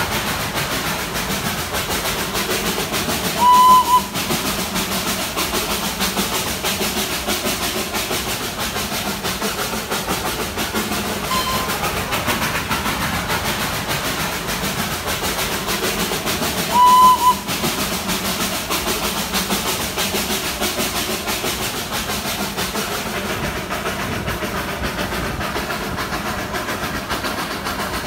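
Darjeeling Himalayan Railway steam toy train running, a steady rail noise, with two short, loud toots of the locomotive's whistle, one a few seconds in and one about seventeen seconds in, and a fainter toot between them.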